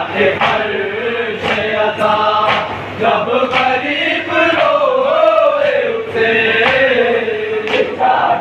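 A group of men chanting a nauha, a mourning lament, in unison. Sharp slaps of chest-beating (matam) keep a beat about once a second.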